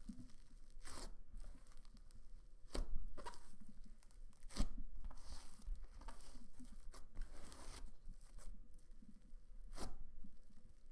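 Cloud slime being stretched and pulled apart by hand, with a soft tearing texture and irregular sharp snaps and pops.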